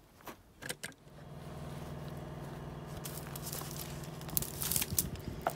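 Light crinkling and clicking in the first second, then a motor starts a steady, even hum about a second in and keeps running, with a few sharp crackles near the end.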